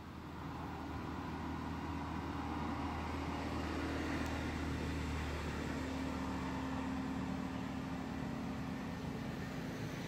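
A steady engine hum that grows louder over the first few seconds, then eases off slightly toward the end.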